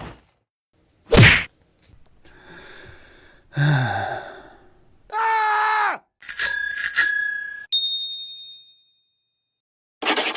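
A run of separate short sound effects with silences between them: a sharp hit about a second in, a low sound falling in pitch around four seconds, a wavering pitched sound, a cluster of electronic beeps ending in a high ringing tone that fades, and a quick rattle of clicks near the end.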